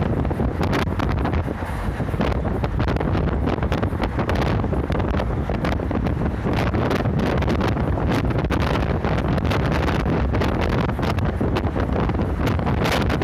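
A route bus driving along: steady engine and road noise, with wind buffeting the microphone throughout.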